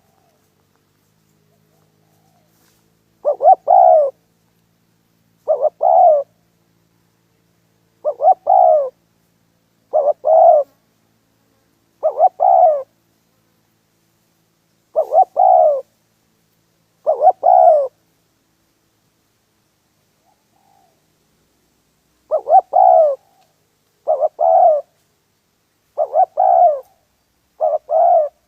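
Spotted dove cooing. A short phrase of a clipped note and two longer coos repeats about every two seconds, with a pause of a few seconds about two-thirds of the way through.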